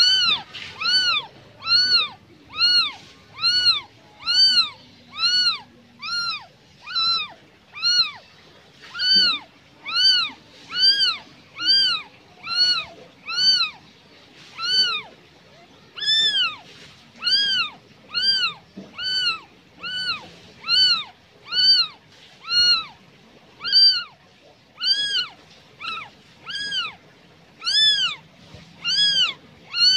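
Newborn kitten mewing over and over, nearly two high cries a second, each rising then falling in pitch: a newborn calling for its mother.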